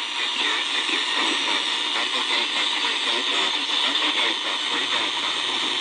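Tecsun R9012 portable shortwave receiver playing the 40-metre amateur band through its small speaker: steady static hiss with a faint, wavering voice underneath that is hard to make out.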